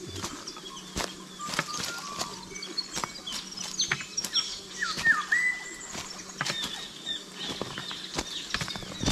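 Footsteps crunching irregularly over loose rocks and dry leaf litter, with birds calling throughout; one clear whistled call about five seconds in falls and then holds.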